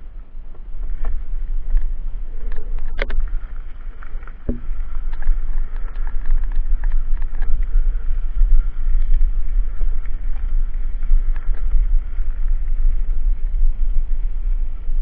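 Wind buffeting the microphone of a mountain bike's camera while the bike rolls over gravel, with scattered clicks and rattles from the bike and stones. The sound rises about half a second in as the ride picks up.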